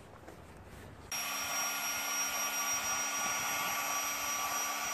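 Small electric air pump running steadily with a high whine, inflating an inflatable boat; it starts suddenly about a second in.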